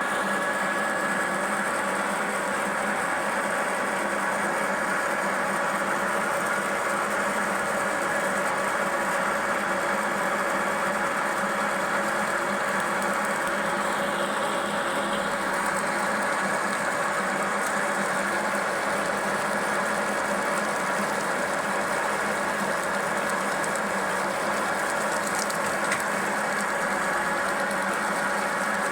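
Conventional metal lathe running steadily, its motor and gear train giving a constant hum with several fixed tones over a mechanical whir.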